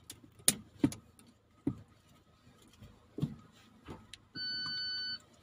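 A few sharp clicks and knocks of controls being handled inside a car cabin, then a single steady electronic beep, about a second long, from the car's dashboard chime near the end.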